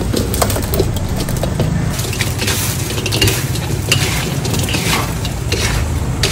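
Fried banana rolls tumbling from a metal bowl into a large wok of hot sauce, then tossed with two wooden spatulas: repeated scraping and knocking against the wok with a light sizzle, over a steady low hum.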